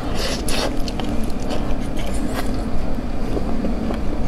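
Close-miked biting into and chewing a soft morsel of meat in chili sauce: a cluster of sharp mouth clicks about half a second in, then scattered smaller clicks, over a steady low rumble.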